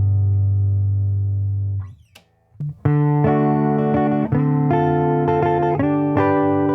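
Electric guitar recorded through a ribbon mic run on a TRS cable into an instrument-level input, which gives a brighter tone. A held chord rings and dies away about two seconds in, and after a short pause a string of chords and notes is played.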